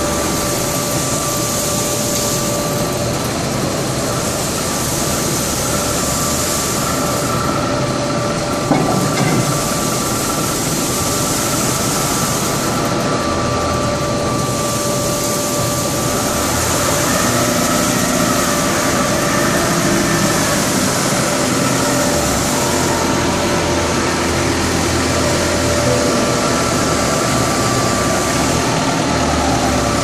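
Industrial machinery of an aluminium chip melting furnace line running: a loud, steady drone with a constant whine and hiss. A lower engine-like rumble joins about halfway through.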